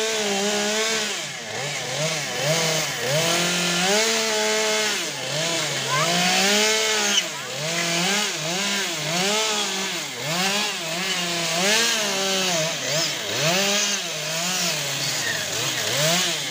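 A small engine revved up and down over and over, its pitch rising and falling about once a second.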